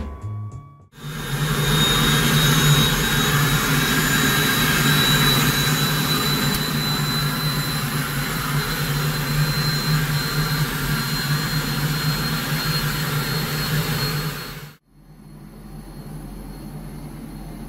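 Helicopter turbine engine and rotor running steadily, heard from inside the cabin, with a deep hum and a high turbine whine. About 15 seconds in the sound drops suddenly and continues more quietly.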